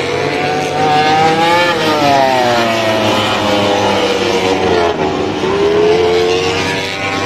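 MotoGP racing motorcycles running at high revs on the circuit. Several engine notes overlap, their pitch climbing and then falling away as the bikes accelerate and go past, with another rise near the end.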